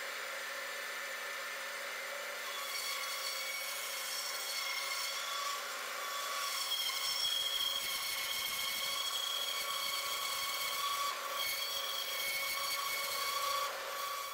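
Bandsaw running and cutting a curve through a doubled stack of boards: a steady machine whine with the blade's cutting noise. The sound grows a little louder about two seconds in and again about seven seconds in as the blade works through the wood.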